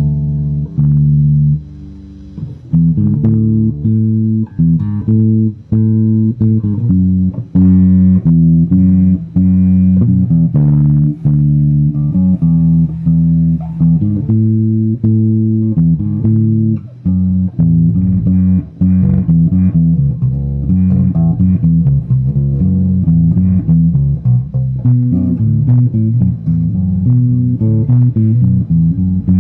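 Electric bass guitar played through an RJ Soundwave bass amplifier: a continuous run of plucked low notes in quick succession, with a brief drop in level about two seconds in.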